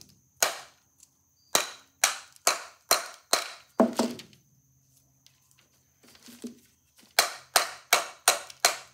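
Oak block striking the pressed-in metal end plate of a Victor II motor's spring barrel at an angle: sharp knocks about two or three a second, a run of about seven, a pause of some three seconds, then another quick run near the end. The blows are working the tight end plate loose from the barrel.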